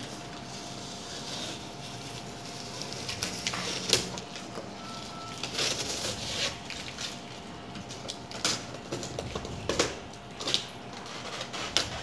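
Packing tape being cut and peeled off a cardboard box, with the cardboard scraped and rustled by hand in irregular bursts and sharp little crackles.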